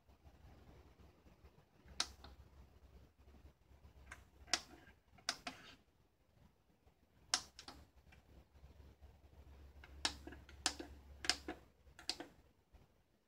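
Front-panel buttons of a Kenwood DP-5020 CD player being pressed to program tracks: about a dozen short, sharp clicks at uneven spacing, some in quick pairs.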